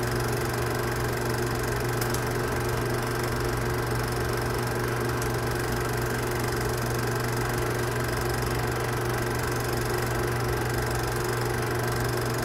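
Film projector running: a steady, unchanging mechanical hum.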